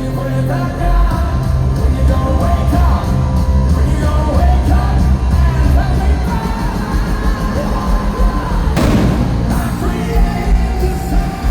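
Hard rock band playing live, with sung and yelled vocals over heavy bass guitar and drums, heard through a large arena's amplification. A loud crash comes about nine seconds in.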